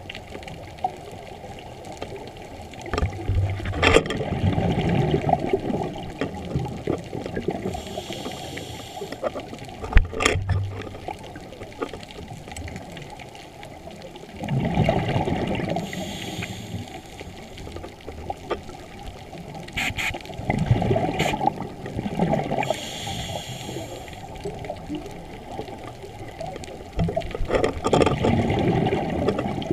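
Scuba regulator breathing heard underwater: rushing, bubbling exhalations every several seconds, with shorter hissing inhalations between them and a few sharp clicks.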